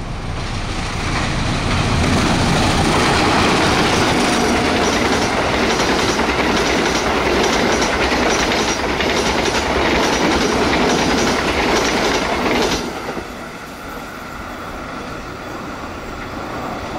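Diesel-hauled passenger train passing close at speed: a loud rush of wheels and coaches with a rhythmic clickety-clack of wheels over rail joints. The noise drops off suddenly about three quarters of the way through as the last coach goes by.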